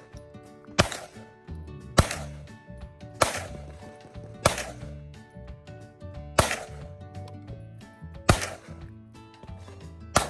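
Gunshots, single and evenly paced, about six in all roughly one to two seconds apart, each sharp and followed by a short ring-out. Steady background music runs underneath.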